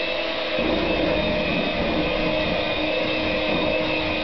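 Electric hand mixer running steadily, its beaters working a mixture in a bowl.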